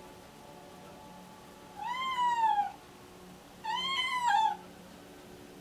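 A deaf pregnant cat in pre-labor meowing twice, two drawn-out meows that rise and then fall in pitch, the second starting a little under two seconds after the first.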